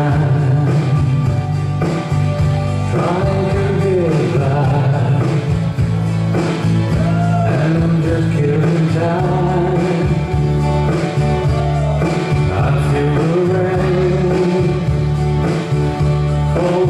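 Country song playing, with a lead vocal singing over a full band with a steady bass.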